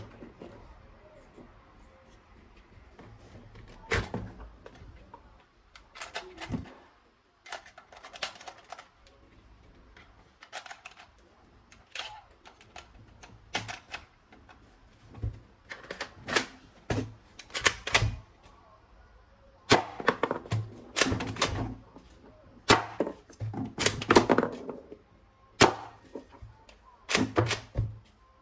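Plastic toy gun parts being handled and fitted together, an irregular run of sharp clicks and knocks, some in quick clusters.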